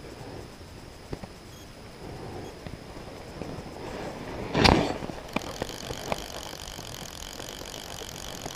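Camera handling noise: faint rustling and scattered light clicks, then one loud brief knock and rustle about halfway through as the camera is moved and set down, followed by a few faint ticks.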